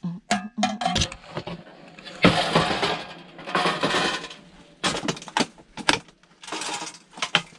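Scrap metal clanking and crunching as it is broken up and flattened: a run of sharp clinks and knocks, with three longer crunching, scraping stretches.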